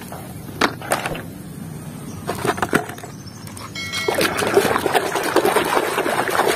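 Soapy water sloshing and splashing as a hand scrubs a plastic toy truck in a basin of suds. There are a few sharp clicks in the first three seconds, and the sloshing grows denser from about four seconds in.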